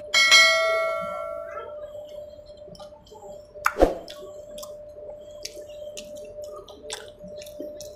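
A bright bell-like notification chime rings and fades over about a second and a half near the start. It is followed by wet pani puri eating: a loud crunchy bite of a water-filled puri just before four seconds in, then small chewing and dripping sounds. A steady faint hum runs underneath.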